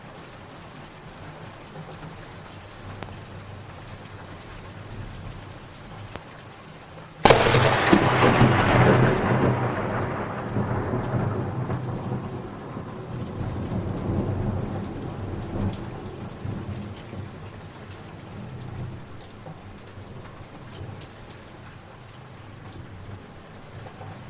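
Steady rain falling, with a sudden loud thunderclap about seven seconds in that rumbles and slowly fades over the next ten seconds or so.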